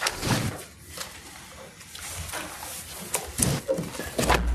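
Papers rustling and being handled at a lectern microphone, with a few short knocks and a dull thump near the end as things are picked up and set down on the lectern.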